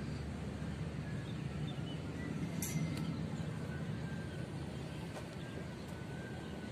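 Outdoor street ambience: a steady low rumble of distant road traffic, with a few faint bird chirps and a single sharp click about two and a half seconds in.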